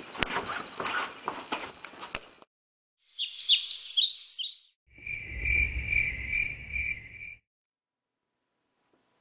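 A brief scuffle of clicks and knocks, then a short burst of quick high bird chirps, then crickets chirping in a steady pulse about twice a second, which stops suddenly.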